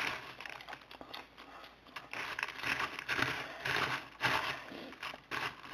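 A hand digging through popcorn in a plastic bowl, the popped kernels rustling in irregular bursts.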